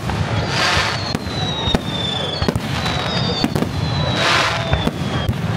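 Fireworks display: aerial shells bang in quick succession over a steady low rumble. A crackling hiss comes twice, about half a second and four seconds in, and thin high whistles slowly fall in pitch.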